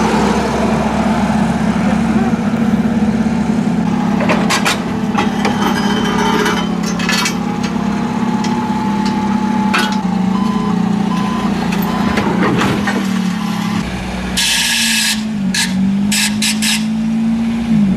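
Propane-fuelled forklift engine running steadily as it pushes a wrecked car, with a few metal clanks and knocks and a short hiss about three-quarters of the way through; the engine note dips briefly twice near the end.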